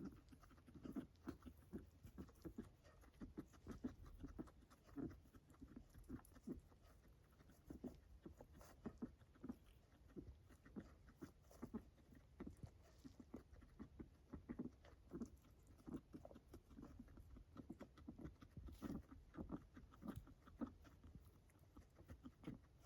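Guinea pig breathing with faint, short noisy pulses, several a second, running on without pause: abnormal, labored breathing.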